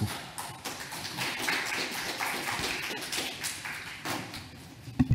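Light applause from a small audience, many quick separate claps that thin out toward the end, followed by a single short knock.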